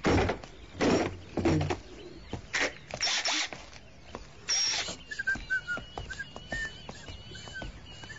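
A few short noisy rushes and knocks, then birds chirping in the background from about five seconds in.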